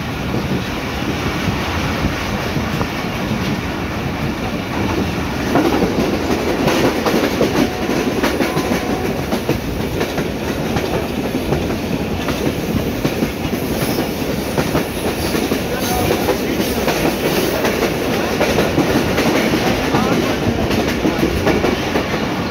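Train running along the track, heard from inside the carriage at an open window: a steady rumble of wheels with clickety-clack from the rails. It grows louder about five and a half seconds in.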